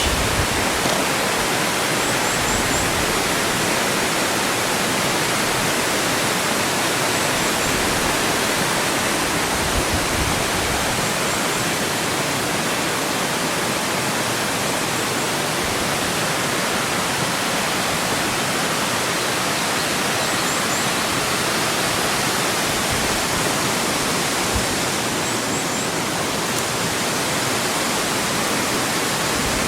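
Ichijo Falls waterfall rushing steadily: an unbroken wash of falling water that does not change.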